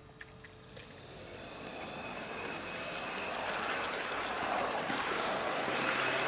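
Heljan Class 128 OO gauge model parcels DMU running along the track with two coaches in tow: motor whir and wheels rumbling on the rails, growing steadily louder as it comes closer. A few light clicks come just as it sets off.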